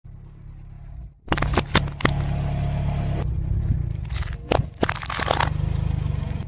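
A car idles with a low, steady engine rumble while its tyre crushes packaged objects on asphalt. Loud crackling and crunching start about a second in, with sharp cracks near the start and two more strong cracks past the middle.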